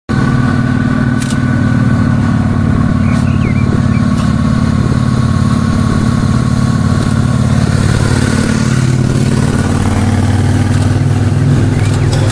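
Motorcycle engine running steadily at low revs as a cruiser-style lead motorcycle rides slowly past, a continuous low drone.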